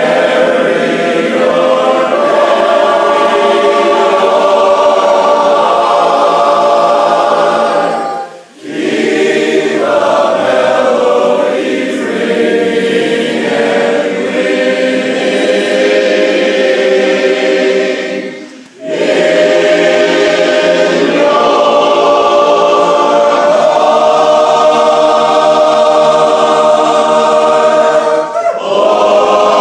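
Voices singing a cappella in close barbershop harmony, with two short breaths between phrases, about eight and nineteen seconds in.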